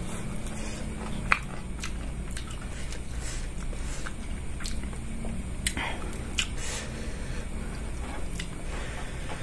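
Close-miked chewing of rice and noodles eaten by hand, with wet mouth clicks and lip smacks scattered through, over a steady low hum.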